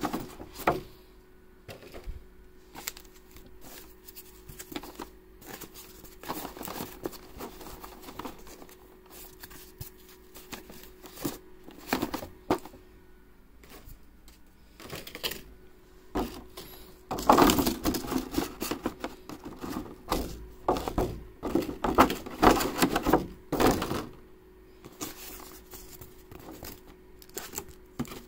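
Board game components being packed back into their box: plastic trays and card decks knocked, slid and pressed into place, with scattered clicks, taps and thuds. The handling is busiest and loudest in a stretch about two-thirds of the way through.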